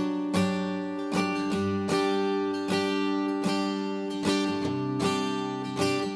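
Background music: an acoustic guitar strummed in a steady rhythm, with chords ringing on between the strums.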